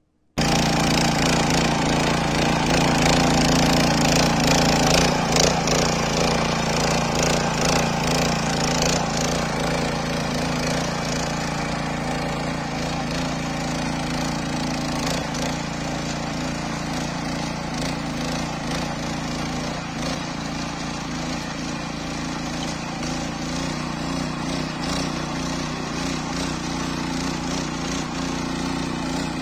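A 5.5 hp walk-behind rototiller's single-cylinder engine running steadily under load as its tines churn through soil. It cuts in abruptly just after the start.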